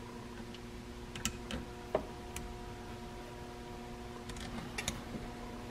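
Light clicks and taps of metal parts being handled as an oil pump and its bolts are fitted to a snowmobile engine case by hand, a few at a time, over a steady low hum.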